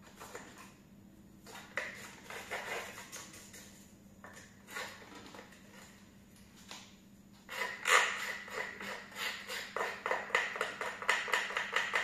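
A small plastic cleaning tool scratches and scrapes at the underside and brush housing of a robot vacuum, working off dust that has caked on from wet mopping. A short run of strokes comes early on, then a faster, louder run of short scrapes over the last few seconds.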